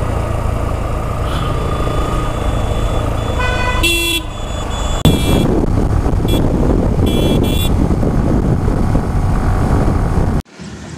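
Steady road and wind rumble from a motorcycle ride, with a vehicle horn blaring about four seconds in, followed by several short horn toots. The sound cuts off abruptly near the end.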